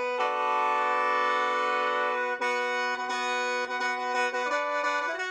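Khaen, the Lao bamboo free-reed mouth organ, played solo: a held chord over a steady drone, with the notes shifting about two and a half seconds in and again near the end.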